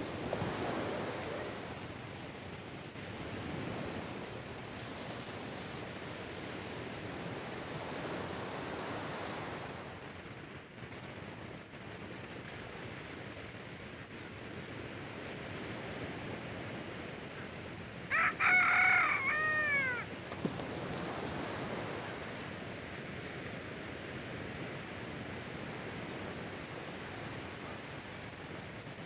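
Gentle waves washing on the shore, swelling and easing every few seconds. About two-thirds of the way through, a rooster crows once, for about two seconds.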